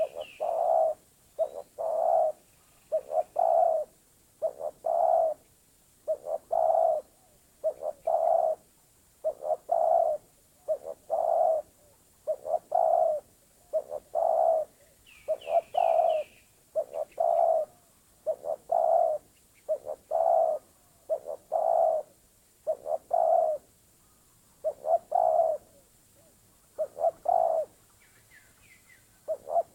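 Spotted dove (terkukur) cooing over and over, a short low phrase about every one and a half seconds, with a pause near the end. A smaller bird calls with a quick run of three high notes at the start, about halfway and again near the end.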